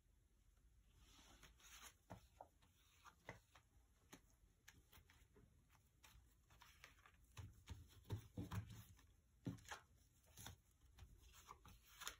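Near silence with faint rustling and scattered light taps and clicks as gloved hands handle painting tools and a swipe card, busiest around eight to ten seconds in.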